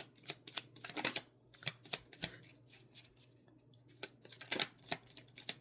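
Tarot cards being shuffled and handled: a run of irregular, short papery clicks and flicks, a few a second.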